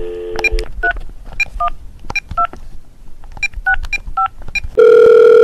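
Telephone sound effect: a brief dial tone, then a run of about a dozen touch-tone (DTMF) keypad beeps in irregular groups as a number is dialled. Near the end a loud steady telephone tone comes on.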